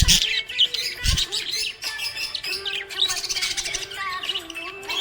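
Small pet parrots chirping and tweeting rapidly and continuously, several birds overlapping. Two short low thumps, one at the start and one about a second in.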